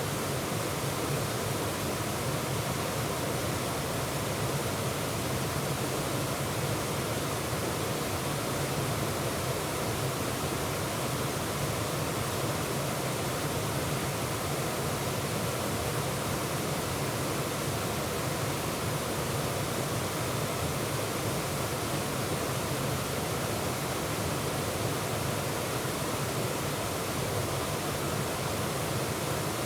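Waterfall: water pouring and splashing over rock in a steady, unbroken rush.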